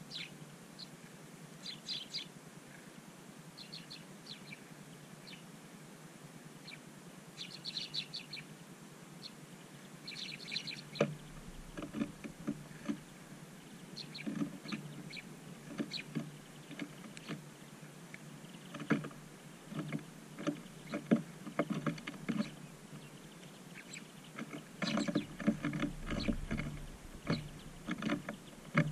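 Small birds chirping in short high bursts, then, from about 11 seconds in, wing flutters and soft taps and knocks as birds land and peck at seed on snow, growing busier near the end.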